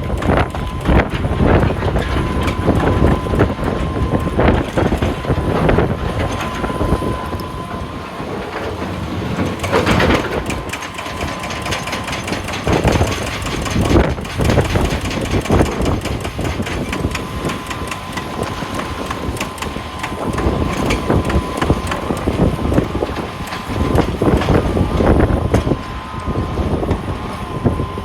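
Heavy wheel loader working rock: the machine runs with a steady high whine that comes and goes, under repeated knocks and clatter of rocks.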